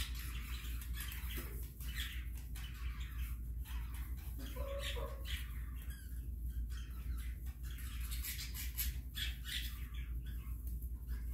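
Chickens scratching and pecking in wood-shavings bedding, with many short rustles, and one short low cluck from a chicken about halfway through, over a steady low hum.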